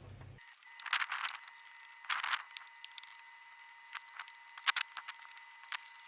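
A few short metallic clicks and scrapes, in separate bursts, of engine parts and hand tools being handled during reassembly of a two-stroke motorcycle top end, over a faint steady high whine.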